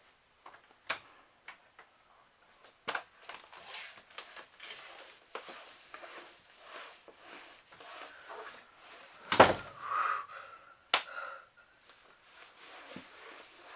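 Scattered knocks, clicks and soft rustling of things being handled in a small room, with one loud knock a little over nine seconds in and another sharp one about a second and a half later.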